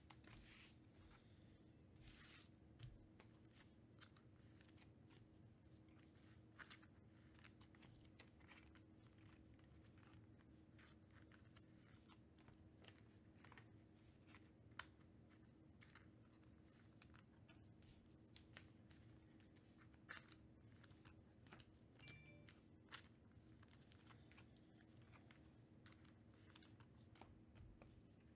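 Near silence: room tone with a faint steady hum and scattered faint clicks and rustles.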